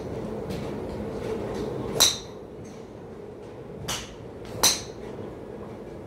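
Golf clubs striking balls at a driving range: sharp cracks, the two loudest about two and four and a half seconds in, with a weaker one just before the second. A steady low hum runs underneath.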